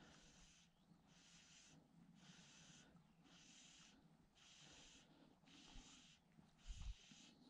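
Fly line being stripped in by hand through the rod rings on the retrieve: a faint hiss about once a second, with a light knock of handling near the end.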